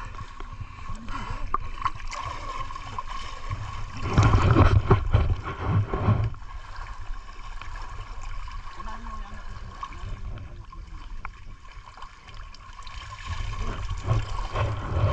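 Water sloshing and splashing as people wade through a chest-deep canal, with a louder stretch about four seconds in and again near the end.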